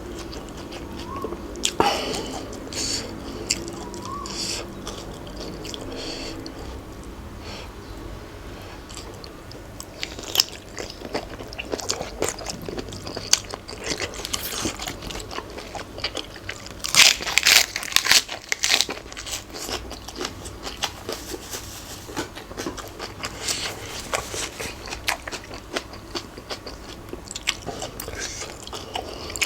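A person chewing and biting crunchy food close to the microphone, with wet smacking and a dense run of loud crunches about two-thirds of the way through.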